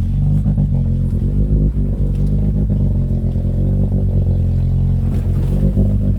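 Opel Blazer's engine running, an engine due for an overhaul, with a steady low hum and an uneven, pulsing level.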